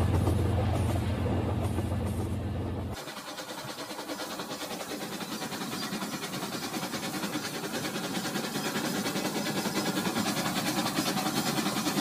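Remote-control toy trains running on plastic track. There is a steady low motor hum for about three seconds, then, after a sudden change, a fast, even rattle of small clicks from the wheels and motor on the track.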